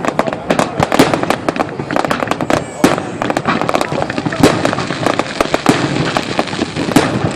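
Big fireworks display: shells bursting and crackling in quick succession, several sharp bangs a second, with crowd voices underneath.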